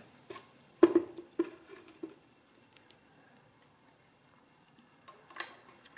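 The Bakelite-cased Stima CM-III adding machine handled and set down on a stone tile floor: about four short knocks and clunks in the first two seconds, the second the loudest, then quiet.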